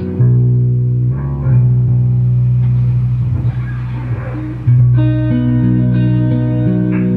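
An amplified looped bass line with electric guitar played over it. The low bass notes are held and change every second or two under the guitar's chords.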